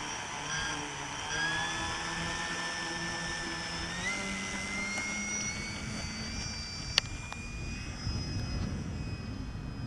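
Radio-controlled 3D-printed FW190 model plane in flight: its motor and propeller make a steady whine that slowly shifts and steps up in pitch about four seconds in. Wind rumbles on the microphone near the end, and there is one sharp click about seven seconds in.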